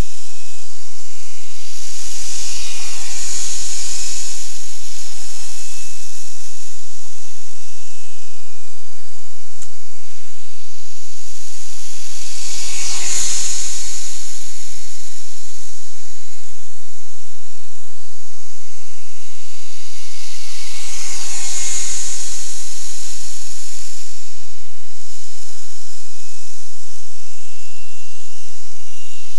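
RC jet model with a 65 mm electric ducted fan and an onboard jet-sound effect device, giving a steady jet-like hiss with a faint whistle; it swells three times as the plane passes, the whistle dropping slightly in pitch with each pass.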